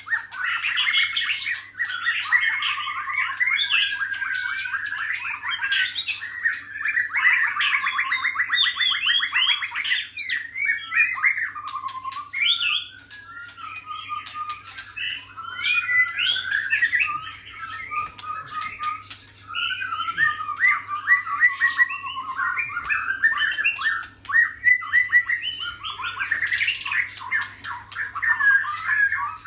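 White-rumped shama singing a long, varied song of rich whistles, fast trills and harsher chattering notes, with only brief pauses.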